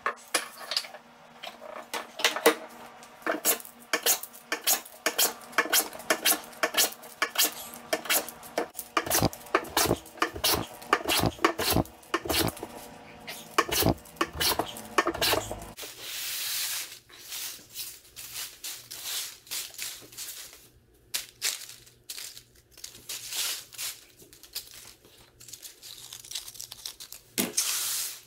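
Hand plane taking rapid short strokes along a hardwood stick, each stroke a quick shearing swipe as a curled shaving comes off, about two a second. A little past halfway the planing stops, giving way to lighter scattered clicks and rustles of the wooden curls being handled on the bench.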